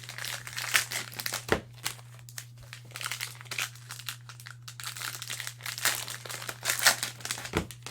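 Cellophane wrapper of a trading card pack crinkling in irregular crackles as it is handled and opened.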